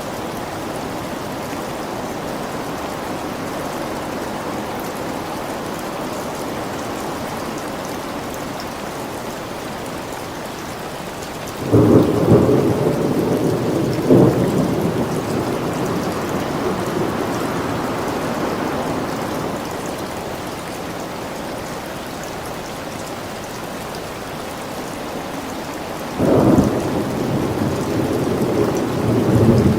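Thunderstorm: steady rain with thunder. A sudden thunderclap comes about twelve seconds in and a second crack about two seconds later, both rumbling away over several seconds, and another clap comes near the end.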